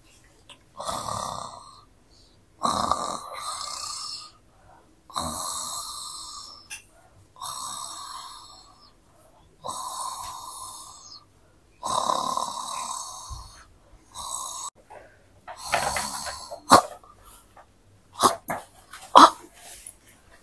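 Snoring, slow and regular: about six or seven drawn-out snores, one every two seconds or so, followed by a few sharp clicks and rustles near the end.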